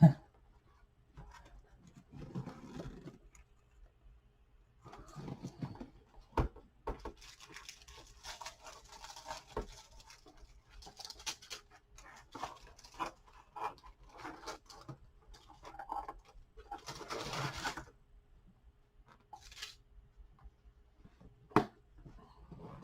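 Packaging being handled: irregular rustling and scraping of box material and wrapping, with a few sharp knocks as items are moved.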